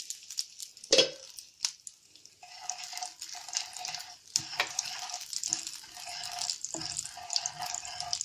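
Carom seeds (ajwain) sizzling and crackling as they fry in hot ghee in a pan, with a sharp knock about a second in.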